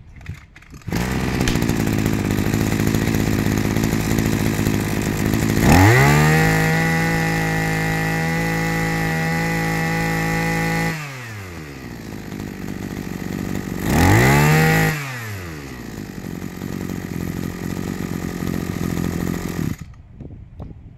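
Maruyama brush cutter's small petrol engine starting on a pull about a second in and idling, then revved up to a steady high speed for about five seconds. It drops back to idle, gets one short blip of the throttle, and idles on until it cuts off near the end.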